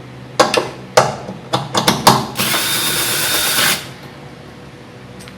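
A few metal clicks as a 13 mm socket is fitted onto a bolt, then a power drill-driver spins for about a second and a half, backing out one of the two 13 mm bolts that hold the coupler under an Electrolux washing machine.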